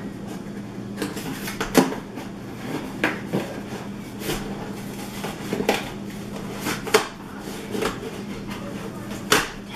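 Glued cardboard box flaps being pried and torn open by hand: irregular scrapes, rips and sharp cracks of cardboard, the loudest about two seconds in and near the end, over a steady low hum.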